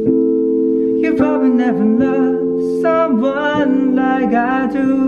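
Male voice singing a slow pop-ballad melody in phrases, over held sustained chords.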